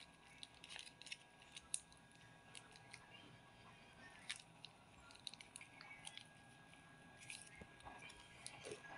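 Near silence: faint room tone with a few scattered small clicks and rustles.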